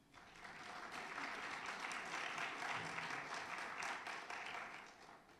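Audience applauding, swelling over the first second and dying away about five seconds in.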